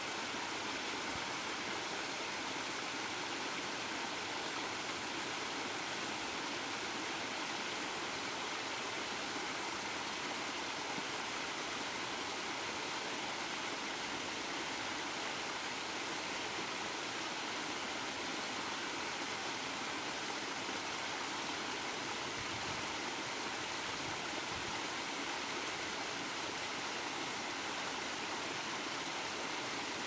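Small waterfall cascading down a rocky, mossy channel: a steady, unbroken rush of falling and splashing water.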